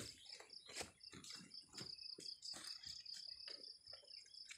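Insects trilling in a steady high pulsing drone, with scattered short knocks and rustles of cut sugarcane pieces and woven sacks being handled, the loudest about a second in.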